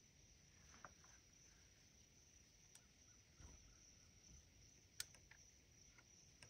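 Near silence: quiet outdoor ambience with a faint steady high-pitched hum and a few faint ticks, the sharpest about five seconds in.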